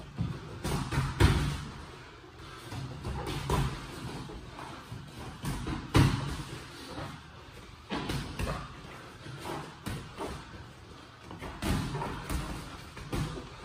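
Boxing gloves thudding during sparring: irregular punches landing, with the hardest hits about a second in and about six seconds in.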